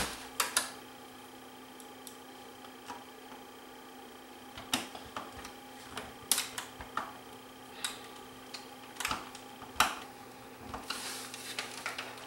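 Scattered clicks and light knocks of a bare VHS VCR chassis and hand tools being handled on a workbench, over a faint steady hum. Near the end there is a short scraping shuffle as the machine is tipped over.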